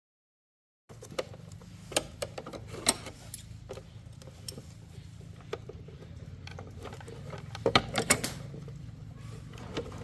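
A steady low hum like a small motor running, with scattered sharp clicks and taps over it. It starts abruptly about a second in.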